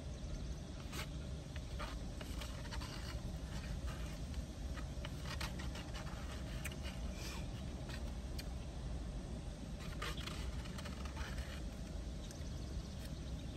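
Eating sounds: a plastic fork scraping and tapping in a foam cup of green beans, with chewing, heard as scattered short clicks and scrapes. A steady low rumble runs underneath.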